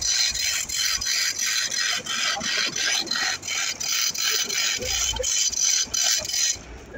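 Manual chain hoist being worked to move a suspended Actros truck gearbox, its chain and ratchet clattering in an even rhythm of about four clicks a second. The clattering stops abruptly near the end.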